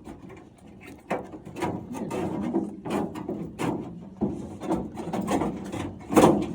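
Irregular scraping, rubbing and knocking of the old door lock being worked out of a truck door, with a louder knock near the end.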